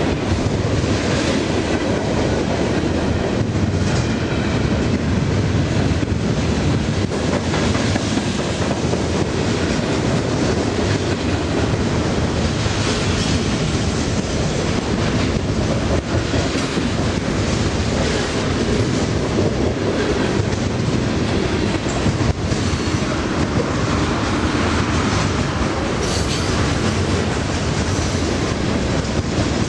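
Freight train cars rolling past at close range: a steady, loud rumble of steel wheels on the rails, with scattered clicks as the wheels pass over rail joints.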